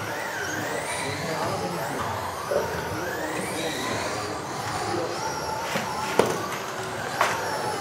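Several electric RC off-road racing cars running on the track, their motors whining high and rising and falling in pitch as they speed up and slow down, several at once. A few sharp knocks come about six and seven seconds in.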